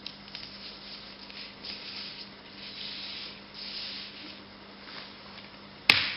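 Poster paper sliding and rubbing against an Easysnap poster hanger rail in soft, irregular scrapes. Near the end comes one sharp, loud snap as the hanger is pressed shut.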